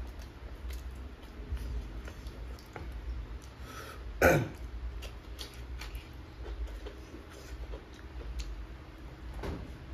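A person eating by hand: close-up chewing and mouth smacking with many small clicks. About four seconds in there is one much louder, sudden mouth or throat sound.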